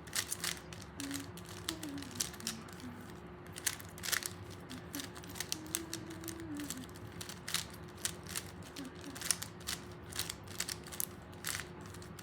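Rubik's Cube being scrambled: its plastic layers twisted again and again, giving quick, irregular clicks and clacks.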